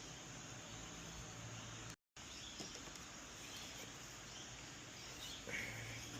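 Faint steady background hiss with a low hum, cutting out completely for a moment about two seconds in; a faint brief rustle near the end.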